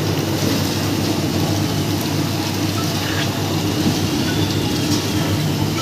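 Rotating-drum snack roaster running with a steady low hum, with a rattling patter of roasted fryum pellets tumbling out of the drum into a wicker basket.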